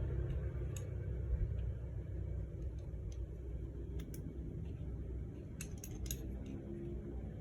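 Scattered light metallic clicks and clinks of hand tools and parts being handled while a motorcycle engine is dismantled, a cluster of them a little after halfway, over a low steady rumble.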